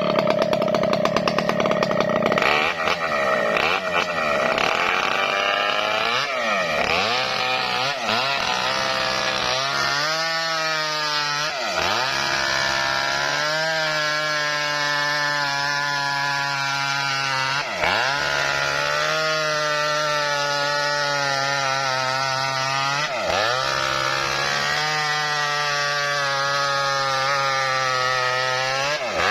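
Engine-driven wood-cutting saw running while it cuts lengthwise through a coconut palm trunk. The engine runs high for the first couple of seconds, then settles lower, its speed dipping briefly and picking back up about every six seconds.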